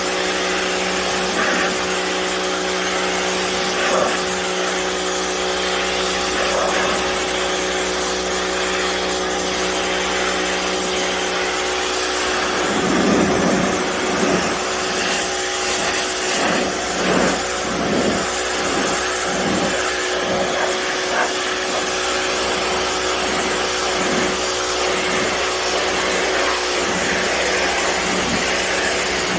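Pressure washer running, its motor drone under the steady hiss of the high-pressure water spray. About twelve seconds in the low drone changes and a pulsing pattern sets in.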